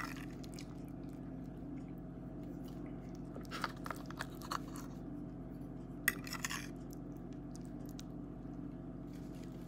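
A person chewing a mouthful of baked ziti, with clusters of short clicky sounds about three and a half to four and a half seconds in and again around six seconds, over a steady low hum.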